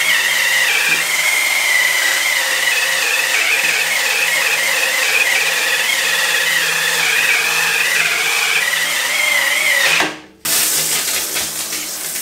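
Dremel VERSA cordless power scrubber whirring as it spins a green scouring pad over a wet bamboo cutting board, a steady whine that wavers slightly in pitch. It stops about ten seconds in, and water then sprays onto the board as it is rinsed.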